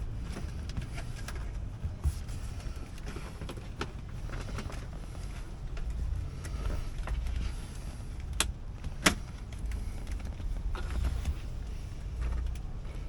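Handling noise from Tesla Model 3 center-console parts being worked loose by hand: scattered light clicks and knocks, with two sharper clicks about eight and nine seconds in, over a low steady rumble.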